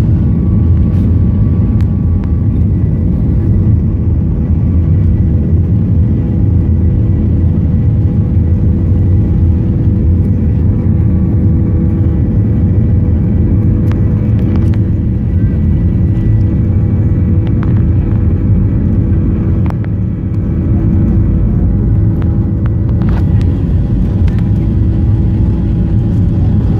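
Cabin noise in a Boeing 737-800 rolling slowly along the runway: the steady low rumble of its CFM56-7B turbofans at low thrust and the wheels on the pavement, with a faint steady hum over it. A few light clicks and knocks come through.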